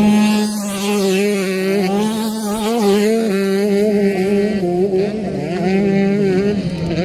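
Camera drone hovering close by, its rotors giving a loud, steady hum that wavers slightly in pitch.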